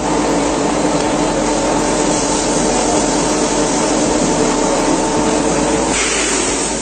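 Plastic blow-moulding factory machinery running steadily: a dense, even noise with a few steady hum tones, and a brighter hiss coming in about six seconds in.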